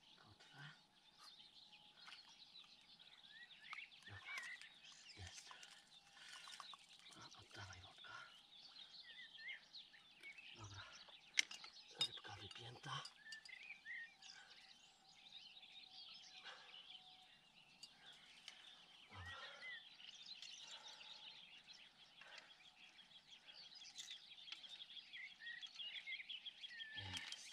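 Quiet outdoor riverbank ambience with birds chirping and trilling throughout. Scattered small clicks and rustles come from unhooking a fish in a landing net, with one sharp click about eleven seconds in.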